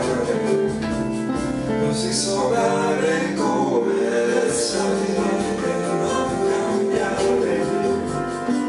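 Piano-led pop ballad on piano and keyboards, with a man's voice singing in places.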